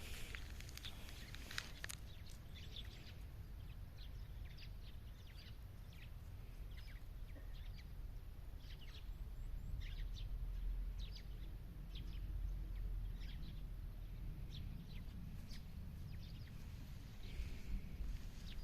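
Small birds chirping now and then, short separate chirps, over a steady low outdoor rumble.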